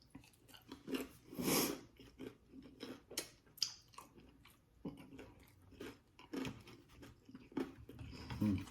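A person chewing and biting into a dessert egg roll close to the microphone: irregular wet mouth clicks and smacks with some crunching.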